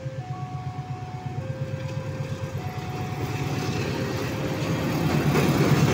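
CC 206 diesel-electric locomotive approaching at the head of a passenger train, its diesel engine running with a steady low pulse that grows louder as it nears. In the first half, a series of held electronic tones steps between a few pitches, then fades under the engine.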